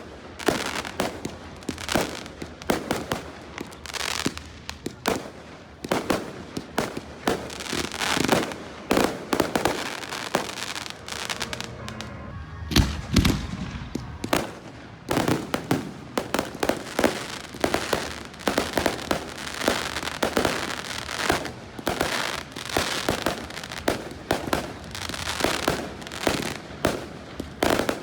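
Fireworks display: a rapid, continuous string of sharp bangs and crackles from bursting shells, with a brief lull about twelve seconds in followed by a deep boom.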